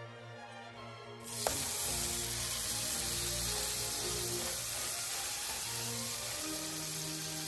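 Chicken patty frying in a ribbed grill pan: sizzling starts suddenly about a second in and then holds steady, with one sharp click just after it begins. Background music plays under it.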